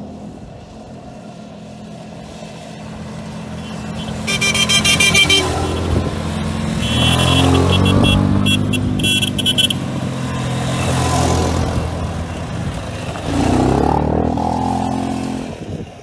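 ATV (quad bike) engines running as the quads ride a dirt track. A horn is honked in quick, choppy toots about four seconds in, and again in broken honks from about seven to nearly ten seconds.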